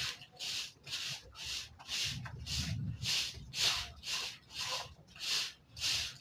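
Sweeping or scrubbing strokes on a wet floor, about two a second and evenly paced, clearing out rainwater that has come into the house.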